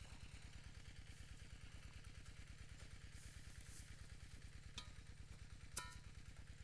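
A faint small engine idling steadily, a low even pulsing hum. Two light clicks sound near the end.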